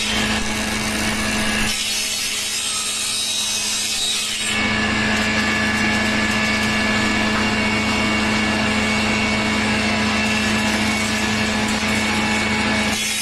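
A power tool running and cutting wood, with a steady motor hum under the noise of the cut. The sound changes abruptly about two seconds in and again about four and a half seconds in.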